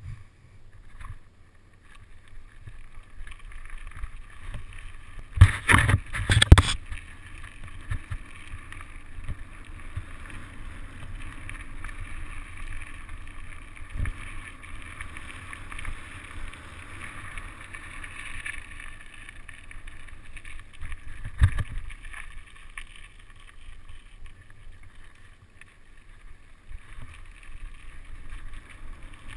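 Mountain bike rolling over a dirt trail: a steady rumble of tyres on the ground, with wind on the microphone. A cluster of hard knocks comes about five to six seconds in and another sharp knock about two-thirds of the way through, as the bike jolts over bumps.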